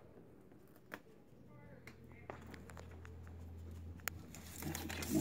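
Quiet room sound with a steady low hum, faint indistinct voices and a few light clicks, with rustling handling noise building near the end.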